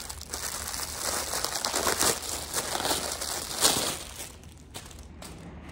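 Packaging crinkling and rustling as items are unwrapped and handled by hand. The rustling dies down about four seconds in, leaving a few faint clicks.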